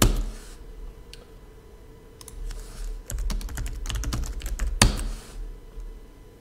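Computer keyboard typing: a couple of keystrokes at first, then quick runs of keystrokes in the middle, ending with one louder key strike about five seconds in.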